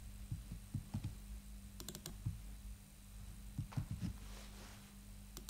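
Faint, irregular clicks of typing on a computer keyboard.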